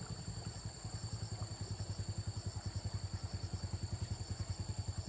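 Motorcycle engine running at low speed, a steady low putter of about ten beats a second that grows louder after about a second.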